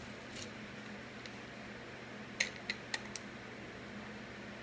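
Small parts of a lawnmower carburetor clicking and knocking together as they are fitted by hand: four light, sharp clicks a little past halfway, over a steady low hum.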